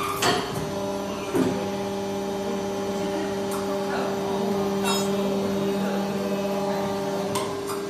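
Aluminum die casting machine running through its cycle: a steady mechanical hum that starts with a clunk about a second and a half in and stops with another clunk near the end, with a few sharp clicks in between.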